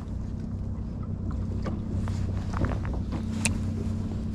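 Small boat's two-stroke outboard motor idling with a steady low hum, with scattered light clicks and knocks from gear being handled aboard.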